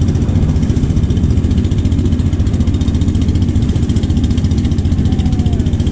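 Boat engine running steadily with a fast, even low-pitched pulsing.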